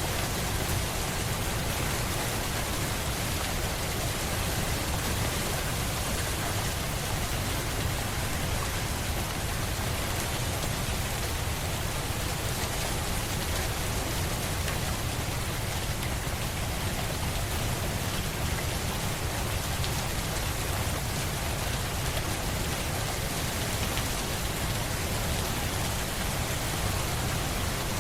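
Steady rainfall: an even hiss of rain falling on a surface, with a low rumble underneath, unchanging throughout.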